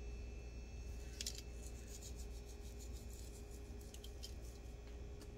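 Seeds shaken from a jar with a perforated lid, rattling out and ticking onto a foil-lined baking pan: scattered short crisp ticks, thickest about a second in and again near four seconds, over a steady low hum.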